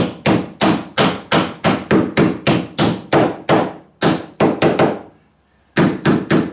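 Ball-peen hammer tapping a glued wooden blocking piece down into the gap at a boat's inwale, with a sharp knock of hammer on wood about three times a second. A short pause comes near the end, then three quicker taps.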